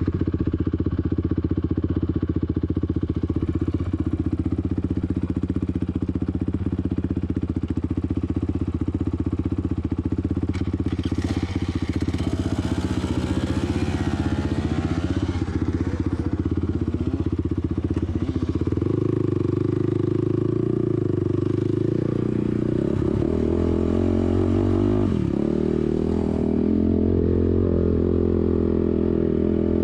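ATV engine running steadily just after being started, then changing to a higher, stronger note about two-thirds of the way through as the throttle is opened.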